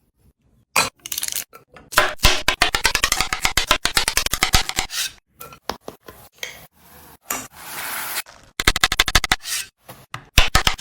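Eggs being beaten in a bowl, the utensil clicking rapidly against the dish in several bursts, with a short stretch of hiss about two-thirds of the way in.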